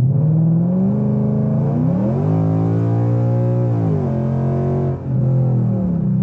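The 5.0-litre V8 of a 2015 Ford Mustang GT, heard from inside the cabin, accelerating hard with its revs climbing steadily. Near the top the automatic upshifts and the pitch drops sharply. A second later the throttle comes off and the engine settles lower. The new tune lets the automatic hold the gear past the usual 6,600 rpm shift point.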